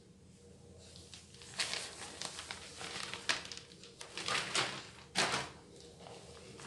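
A T-shirt covered with strips of packing tape being lifted and turned over by hand: irregular rustling and crinkling of the cloth and plastic tape, in several bursts from about one and a half to five and a half seconds in.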